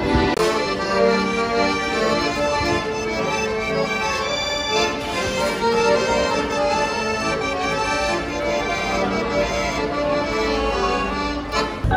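Accordion playing a tune over sustained chords.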